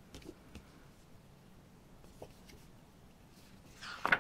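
Soft paper and card handling noises as a thin photo book is picked up, then a louder swish of glossy pages being flipped with a sharp click near the end.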